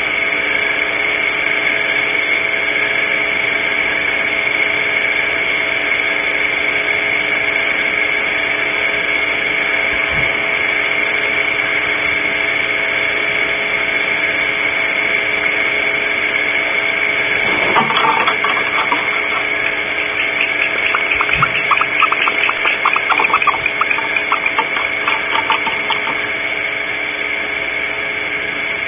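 An owl's talons striking a wooden branch near the microphone: one sudden knock, followed by a few seconds of quick ticks and scrapes as the bird grips and shifts. Under it runs a steady electrical hum with several fixed tones.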